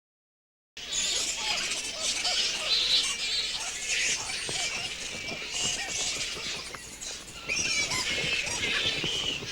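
Many flying foxes screeching and chittering at once, a dense chorus of shrill, overlapping calls that begins about a second in after silence.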